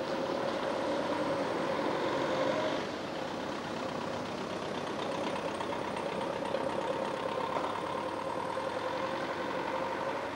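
Steady vehicle engine hum with a sustained, slightly wavering whine over street noise.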